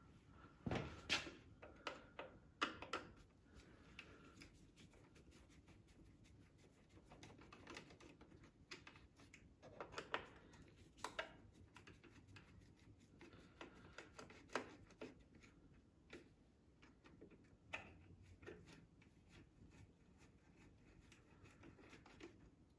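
Faint, scattered clicks and light knocks of hand-tool work on a riding mower's engine, a socket wrench loosening the engine shroud's bolts.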